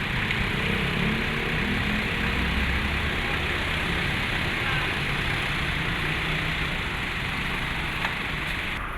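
A motor vehicle engine running steadily at idle, with a low rumble under a constant noisy hiss.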